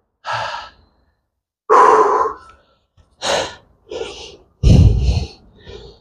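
A man breathing hard after a set of twenty push-ups: about six heavy, noisy out-breaths and sighs roughly a second apart, the loudest near the end with a deep rumble.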